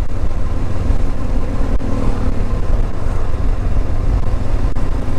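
Motorcycle cruising at about 35 km/h, heard from the rider's seat: a steady low rumble of engine and road noise.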